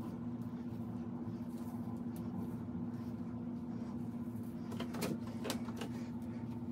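A steady low mechanical hum, with a few short clicks about five seconds in.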